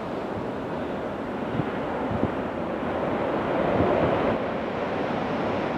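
Strong wind buffeting the microphone in a steady rush, swelling in a gust about four seconds in.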